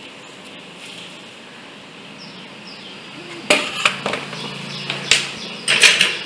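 Handling noise: a low steady background for the first half, then a run of sharp knocks and clatters, the loudest near the end.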